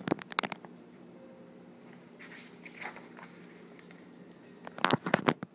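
Pages of a picture book being handled and turned: a few sharp paper clicks and rustles at the start, soft rustling in the middle, and a louder cluster of crinkles near the end, over a steady low room hum.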